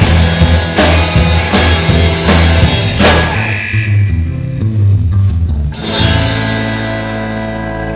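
Live rock band with two electric guitars, bass guitar and drum kit playing loudly. The drums keep a steady beat for about three seconds and then drop out while the guitars and bass hold sustained notes. One cymbal crash comes near six seconds in, and a held chord rings on after it.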